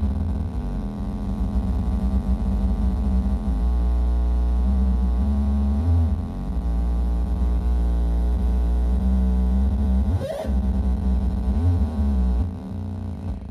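No-input feedback drone from a Behringer MX602 mixer with its outputs patched back into its inputs: a loud, low buzzing drone whose tone wavers as the knobs are turned. About ten seconds in there is a short squealing chirp, and near the end the drone drops in level.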